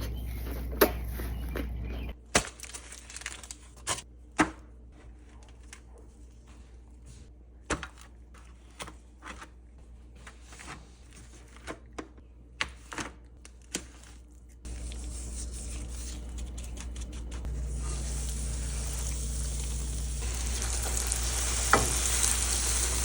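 Close-up eating sounds: scattered short crunches and clicks from biting and chewing a burrito filled with crunchy Flamin' Hot Cheetos. Over the first couple of seconds and the last third there is a steady hiss behind them.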